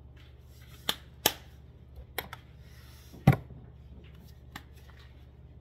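A handful of sharp clicks and knocks, as small kitchen items are handled at an open food processor bowl. The loudest knock comes a little past three seconds in.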